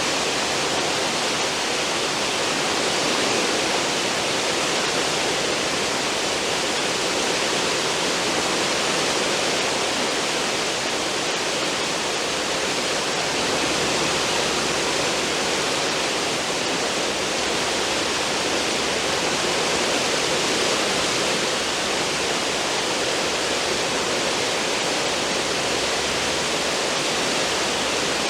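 Cruise ship's wake churning and rushing behind the stern: a loud, steady wash of foaming water.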